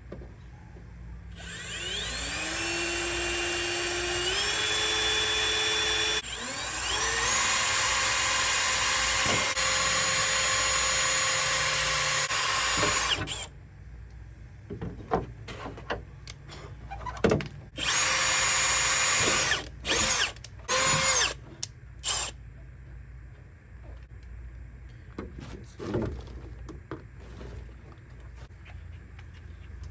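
Power drill whining as it spins up and drills holes in a car door-card panel to enlarge them. It runs in two long stretches, then in several short bursts.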